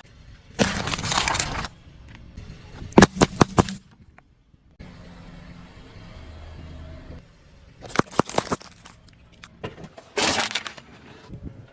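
Objects being crushed under a car's wheels: bursts of crunching with clusters of sharp cracks about three seconds in and again about eight seconds in, and a low steady hum in between.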